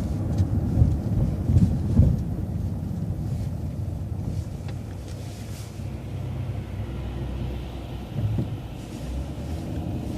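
City transit bus driving, heard from inside: a steady low rumble of engine and road noise, with a few knocks and bumps in the first two seconds.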